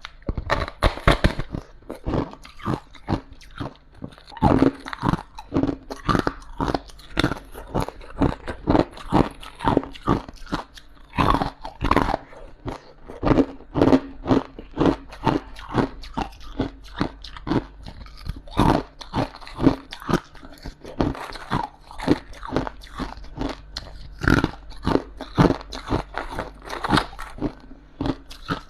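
Close-miked crunching of frost being bitten and chewed: dense, irregular crunches, several a second, with no pauses.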